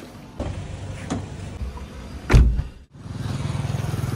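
Car sounds: a few knocks, then a heavy thud of a car door shutting about two and a half seconds in. The sound cuts out briefly, then a vehicle engine runs steadily with an even low pulse.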